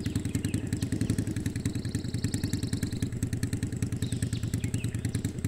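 Motorcycle engine running steadily with a rapid, even putter.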